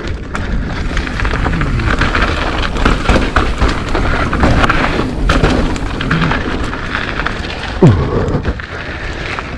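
Mountain bike being ridden up a rocky dirt trail: steady wind rumble on the microphone with tyres on dirt and stones and scattered clicks and rattles from the bike. A short falling tone about eight seconds in is the loudest moment.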